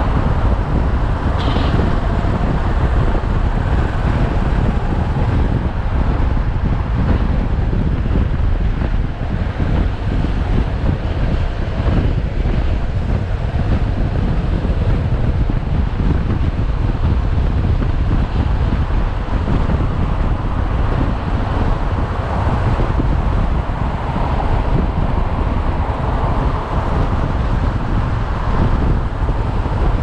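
Wind rushing over the microphone of a moving motorcycle, a loud, steady low rumble with engine and road noise underneath.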